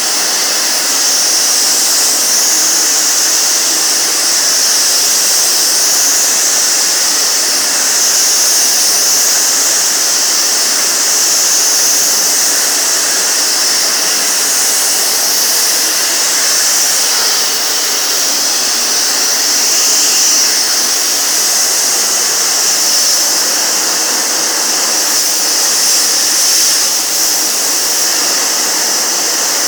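Sagola compressed-air paint spray gun spraying continuously: a loud, steady high hiss of air and paint mist with a faint whistle-like tone under it.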